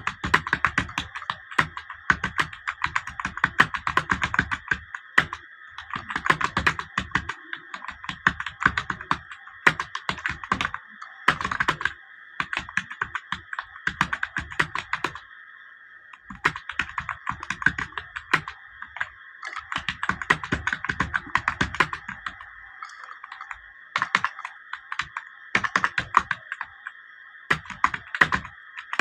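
Fast typing on a computer keyboard: rapid runs of key clicks broken by short pauses.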